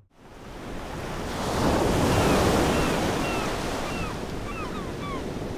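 Ocean surf: a wave swells and breaks, at its loudest about two seconds in, then slowly washes out. Birds call over it in short arched cries, several in quick succession near the end.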